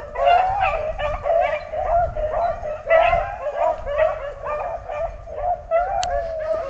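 A pack of rabbit hounds baying together, many short overlapping yelps and bawls with no break: the dogs giving voice as they run a rabbit's trail.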